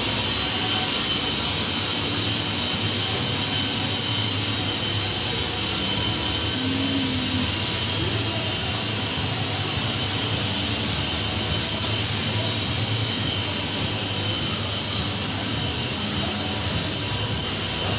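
Open refrigerated display cases running: a steady, even hiss with a low hum underneath.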